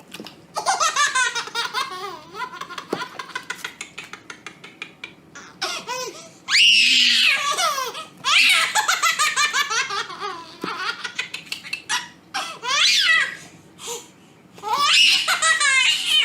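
A baby laughing hard in runs of quick, high giggles, breaking into louder, longer squealing laughs about six seconds in and again near the end.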